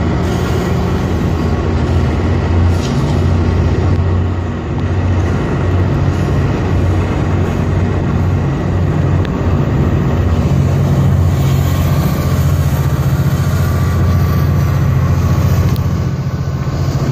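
GO Transit F59PH diesel locomotive and its train of bi-level coaches passing, with a steady low drone from the EMD 12-710 diesel engine over constant train noise.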